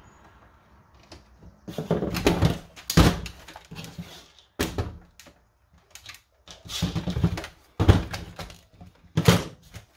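Plastic body of a Nerf Vulcan blaster handled and knocked against a tabletop: bursts of clattering, scraping and knocks starting about two seconds in as the blaster is lifted and turned over.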